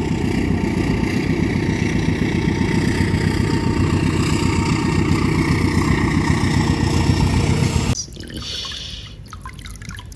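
Water running steadily onto a muddy toy train as it is rinsed, with a heavy low rush; it cuts off abruptly about eight seconds in, leaving a few small clicks and knocks of the toy being handled.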